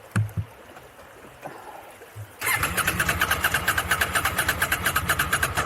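KTM 790 Adventure's parallel-twin engine being cranked on its electric starter, a fast, even chugging of about ten beats a second, after the bike was dunked in the river. It starts suddenly about two and a half seconds in, runs for about three seconds, and stops abruptly without the engine catching.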